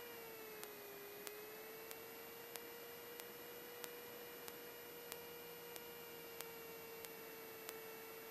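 Faint steady electrical whine on the Cessna 172's intercom audio, dipping slightly in pitch about a second in, with faint regular clicks about one and a half times a second.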